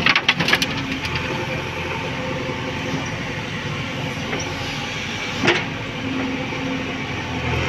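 JCB backhoe loader's diesel engine running steadily while the backhoe digs and loads, with a quick burst of clattering knocks at the start and a single sharp clank about five and a half seconds in.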